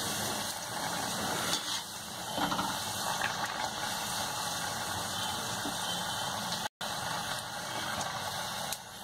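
A puri deep-frying in hot oil in a kadhai, a steady crackling sizzle as it puffs up and browns, cutting out for an instant about two-thirds of the way through.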